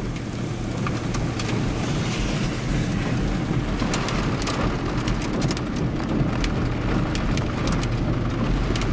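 Rain striking a vehicle's roof and windshield as a steady noise, with sharp drop ticks growing more frequent from about halfway in, over the low hum of the vehicle.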